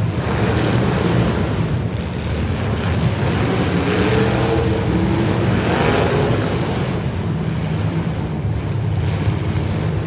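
Demolition derby car engines running loud and rough, with a rising and falling rev in the middle.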